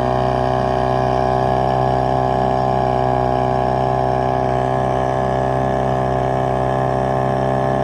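Boat motor running at a steady speed, an even unchanging hum.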